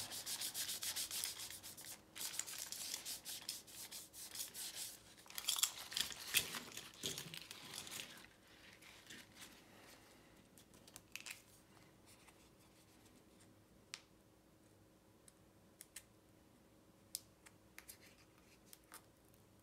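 An alcohol prep pad rubbed briskly back and forth over a hard-plastic jointed swimbait, wiping the lure's body clean of finger oils before a protective film goes on. The rubbing stops about eight seconds in, leaving only a few faint clicks and taps.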